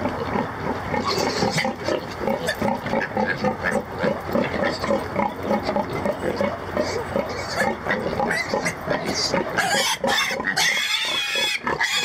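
A bunch of Berkshire–Hampshire–Red Wattle cross piglets grunting rapidly as they scramble around the pen. About ten seconds in, one piglet squeals loudly and shrilly as it is grabbed by the leg.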